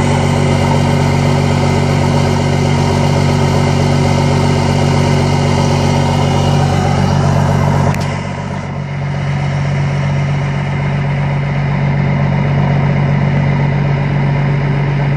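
Dodge W250's intercooled 5.9-litre Cummins turbo-diesel inline-six idling steadily, heard through its open 5-inch straight exhaust stack. About halfway through there is a brief click, after which the sound is a little quieter and duller.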